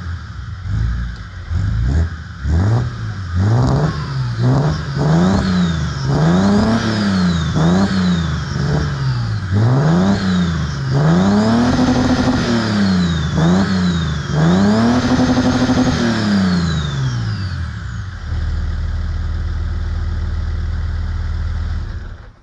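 BMW M57 3.0 straight-six turbodiesel, with a GT2260V turbo and a custom-fabricated exhaust manifold, blipped from idle in a string of quick revs, a few held briefly, with a high whistle rising and falling with each rev. It settles back to a steady idle for the last few seconds before cutting off suddenly near the end.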